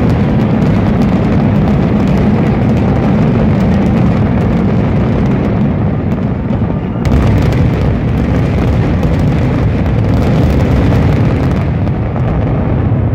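Fireworks finale barrage: many shells bursting in such quick succession that they run together into one dense, deep, nearly continuous din, with a sharp loud report about seven seconds in.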